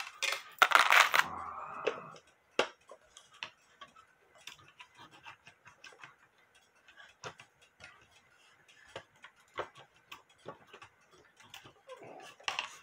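Irregular light clicks and taps from a wooden Dutch wall clock case and its movement being handled and worked loose, with a louder scraping rustle about a second in.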